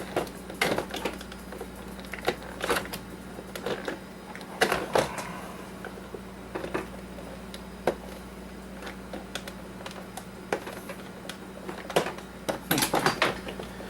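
Irregular clicks and taps of a hand tool working on the plastic housing of an Oster coffee maker, prying at small caps that cover hidden screws, with a cluster of quicker clicks near the end.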